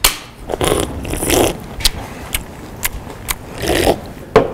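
Loud slurping from a drink can in two long, noisy pulls, with a few sharp clicks between them.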